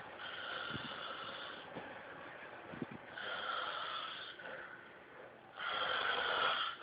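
A sleeper snoring: three long snores about two to three seconds apart, the last one the loudest.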